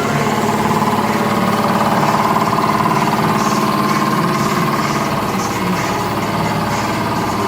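An engine running steadily at idle, an even hum with no change in speed.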